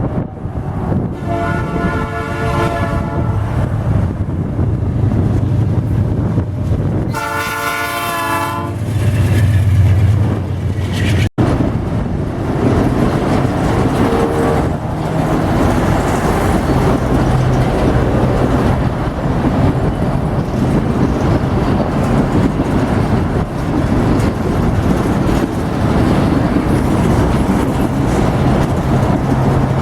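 Freight train locomotive horn sounding twice, a blast about a second in and another about seven seconds in, over the low drone of the diesel engine. After that the train rolls past with steady running noise and wheel clatter on the rails.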